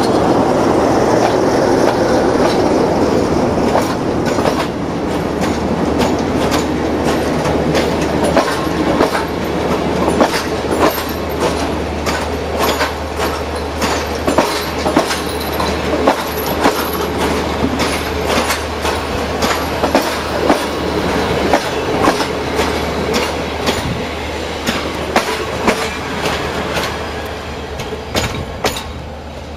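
A passenger train's coaches running past on the next track, wheels clicking over the rail joints in a steady clickety-clack over a low hum. The clatter thins and fades near the end as the last coaches go by.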